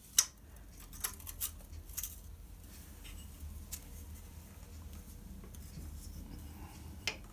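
Scattered light metallic clicks and taps of a hand tool working on the earth connection bolted to a motorcycle frame, the sharpest just after the start, over a faint low hum.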